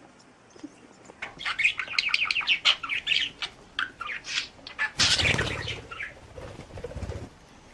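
A pet bird flapping its wings, with quick clicks and chirps, then a louder rush of flapping about five seconds in.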